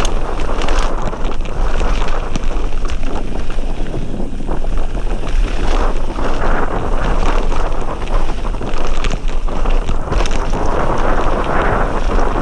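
Mountain bike rolling fast down a gravel trail, heard from a rider-mounted camera: wind buffeting the microphone over the steady crunch of tyres on gravel, with frequent small clicks and rattles from the bike.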